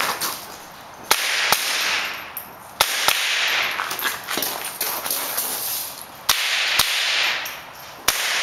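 Rifle shots fired mostly in quick pairs, seven loud shots in all, with a pause of a second or more between pairs. Each crack is followed by a long echo rolling back off the range.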